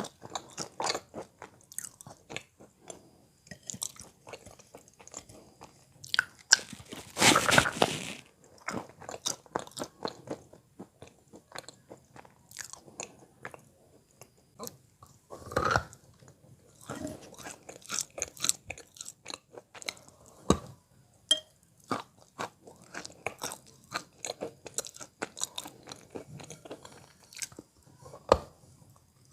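Close-miked biting and chewing of wet Belogorye chalk: a run of dull, muffled crunches with a long loud crunch about seven seconds in and another sharp one midway.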